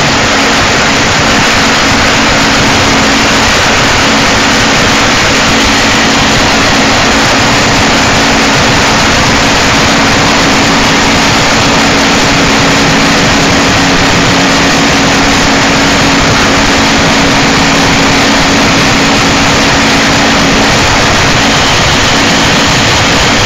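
Harsh noise: a loud, dense, unchanging wall of distorted static with no beat, over a steady low drone that drops away near the end.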